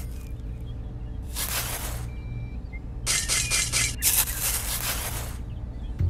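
A small hand tool digging and scraping into dry sand, in three gritty bursts, the middle one a quick run of about five short strokes, over a low steady hum.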